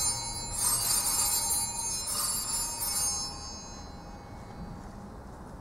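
Small altar (sanctus) bell rung at the elevation of the chalice, struck twice, about half a second in and about two seconds in. Its high, bright ringing dies away by about four seconds in.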